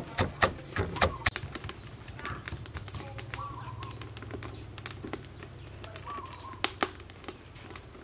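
Cleaver chopping lemongrass and red chillies on a thick wooden chopping board: a quick run of chops in the first second or so, then slower, scattered strokes. Birds chirp faintly a few times, over a low steady hum.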